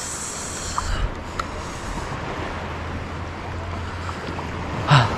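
Outdoor water ambience: wind buffeting the microphone over lapping water, with a low steady hum and a brighter hiss in the first two seconds. A short voiced exclamation comes near the end.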